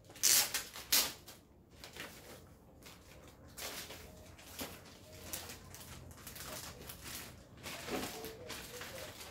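Paper and plastic packaging rustling and crinkling as a paper envelope is opened and a clear plastic bag of small parts is pulled out and handled. Two sharper, louder crackles come in the first second, then softer rustles.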